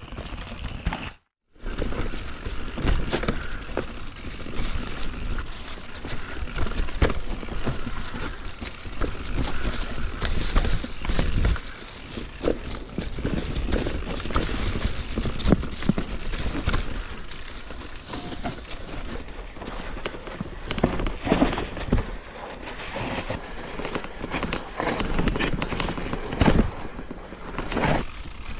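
Mountain bike riding a rough trail: tyres rumbling over rocks and roots, with frequent rattles and knocks from the bike. The sound drops out for a moment about a second in.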